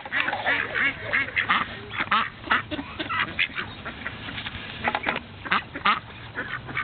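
Several ducks quacking close by, in short, irregular quacks that overlap one another.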